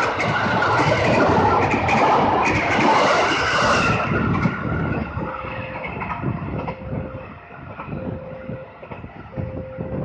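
JR 205-series electric commuter train passing close by at speed, its wheels clattering loudly over the rails. About four seconds in the sound drops away to a quieter background, with a short steady beep repeating about once a second.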